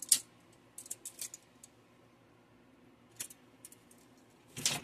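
Light clicks and taps of small hard objects being handled: a metal tape measure and a screw-together fake car lighter with a metal cup and plastic top. A sharp click comes right at the start, a few quick taps about a second in, and a louder, longer scuffing knock near the end.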